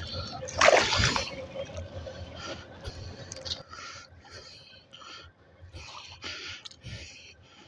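Shallow lake water sloshing and splashing among shoreline rocks as a channel catfish is held in it by hand and let go, in a run of short splashy washes. A louder splash or scrape comes about a second in.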